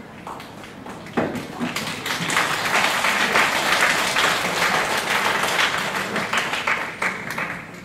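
Audience applauding. The clapping starts about a second in, swells, then fades away near the end.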